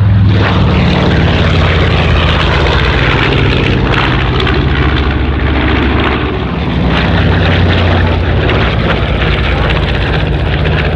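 North American B-25 Mitchell's twin Wright R-2600 radial engines and propellers running steadily at power as the bomber flies past overhead.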